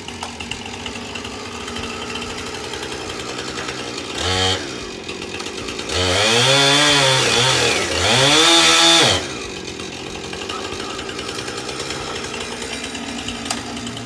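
Petrol chainsaw idling, blipped briefly about four seconds in, then run at full throttle twice in a row from about six to nine seconds as it cuts into the tree trunk, its pitch rising and sagging in each pass, before dropping back to idle.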